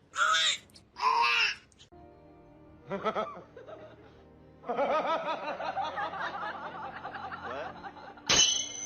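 Two short, loud, harsh calls in the first second and a half, then laughter with music under it, cut near the end by a sharp click.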